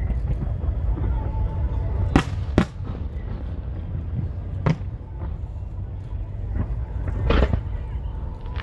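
Aerial fireworks bursting: sharp bangs about two seconds in, again half a second later, near the middle and near the end, over a continuous low rumble of booming shells.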